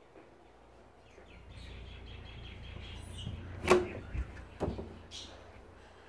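A low rumble of handling noise that swells and fades, with one loud sharp knock a little past the middle and a smaller knock about a second later.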